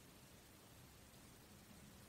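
Near silence: a faint steady background hiss.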